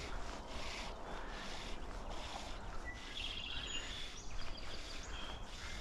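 Steady outdoor background noise with small birds chirping several times, including a short rapid trill about three seconds in.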